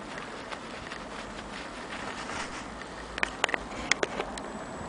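Steady low hiss, then several irregular sharp clicks and taps in the last second and a half: handling noise as the camera is brought close to the fabric.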